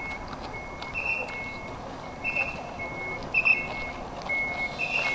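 Fire engine's two-tone reversing alarm, beeps alternating between a higher and a lower pitch and repeating steadily.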